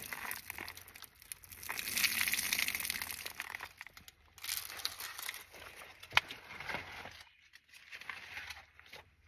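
Rustling and crackling noise coming in waves, with one sharp click about six seconds in.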